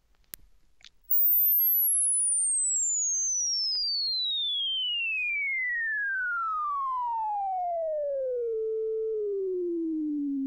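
Loudspeaker playing a sine-sweep test tone for a rub-and-buzz measurement, starting about a second in after a faint click and gliding steadily down in pitch from very high to low. The pitch holds briefly near the end before falling on. This is the clean first run, with no knock added to the speaker.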